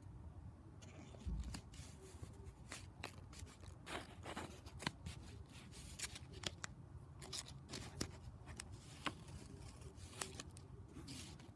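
Paper handling: faint, irregular crackles and taps as fingers rub and press a small piece of red paper onto a sheet of paper.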